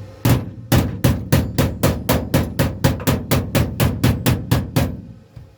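A hammer striking in a fast, steady series of about twenty blows, roughly four to five a second, stopping about a second before the end.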